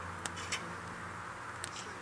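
Wood campfire crackling, with a few sharp pops over a steady low hum.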